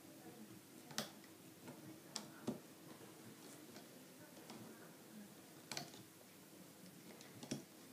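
Quiet, sparse clicks of a plastic hook tool working rubber bands on the pegs of a plastic band loom. There are about five sharp clicks, the clearest about a second in, twice around two and a half seconds, just before six seconds and near the end, over a faint steady hum.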